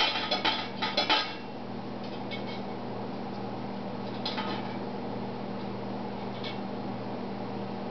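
Lovebird knocking a stainless-steel saucepan lid against its pot. A quick flurry of metallic clinks and rattles comes in the first second or so, then a single light clink every couple of seconds.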